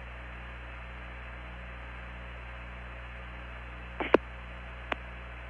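Open radio channel on the Apollo 15 air-to-ground recording: a steady hum and hiss with no voice. Two short clicks come about four and five seconds in, the first the louder.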